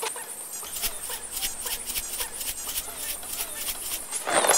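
Animal calls: many short, high chirps and squeaks, with a louder, rougher call just before the end.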